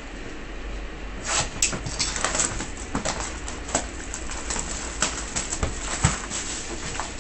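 Plastic shrink-wrap being slit and peeled off a cardboard box of trading cards: crinkling and crackling with scattered sharp ticks, and a dull knock of the box being handled about six seconds in.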